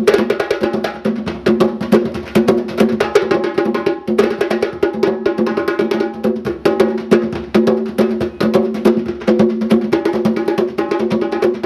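Percussion-led music: many fast, dense strikes over steady pitched notes, keeping up without a break.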